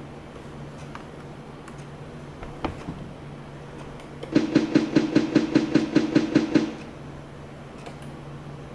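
Sound effect from the LED lighting controller's sound shield played through a speaker: a rapid pulsing electronic tone, about five pulses a second for a little over two seconds, the cue that the fixtures are switching on. A click comes shortly before it, over a steady low hum.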